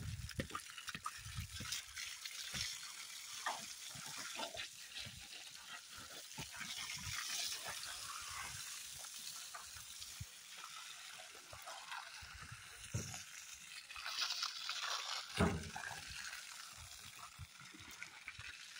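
Water from a garden hose gushing and splashing onto loose clay soil and into a puddle forming in a pit, the clay being soaked for brick-making. A steady hiss of running water with irregular splatters, louder for a moment near the end.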